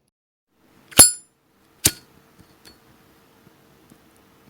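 Zippo lighter's hinged steel lid flicked open with a sharp click and a short metallic ring, followed just under a second later by a second sharp click.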